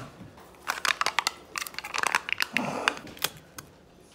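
A plastic tub of Betty Crocker vanilla frosting being opened, the lid pulled off and the foil seal peeled away: a run of crinkles and sharp clicks that stops shortly before the end.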